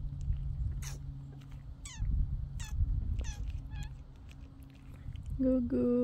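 About half a dozen short, high chirps, each falling quickly in pitch, spaced irregularly over a steady low hum and a rumble. A woman's voice starts near the end.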